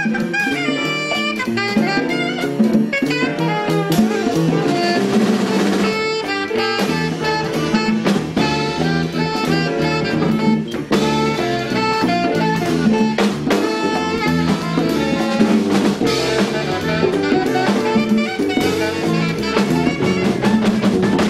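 Live jazz combo playing: a saxophone runs a fast improvised line over drum kit with cymbals, bass guitar and keyboard.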